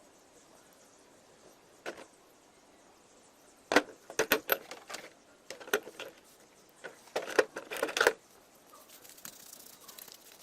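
Irregular sharp clicks and metallic clinks of small hard parts being handled, one at about two seconds and then clusters around four to five and seven to eight seconds.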